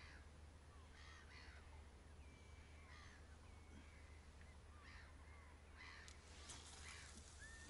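Faint, distant bird calls over a quiet background: short harsh calls and little hooked whistles, repeated every second or so, a little busier near the end.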